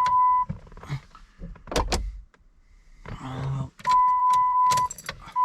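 A steady high electronic beep tone from the truck's cab, sounding briefly at the start, again for about a second near four seconds in, and coming back near the end and holding. There is a single thunk about two seconds in and a quick run of clicks just before the tone returns.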